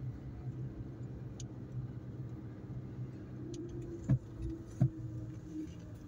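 Car running down the road, heard from inside the cabin: a steady low engine and road hum. Two sharp knocks come a little under a second apart, about four seconds in.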